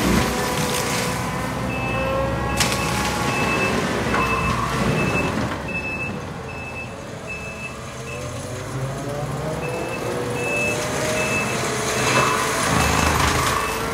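Takeuchi TL12V2 compact track loader's diesel engine and Denis Cimaf 180D mulching head running under load, the pitch rising and falling as the mulcher works. The machine's reverse alarm beeps about twice a second in two stretches, one early on and one near the end.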